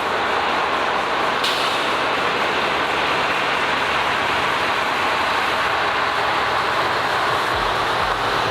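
A large truck running and driving up, a steady loud rush of engine and road noise with a low rumble that strengthens near the end; a brief click about a second and a half in.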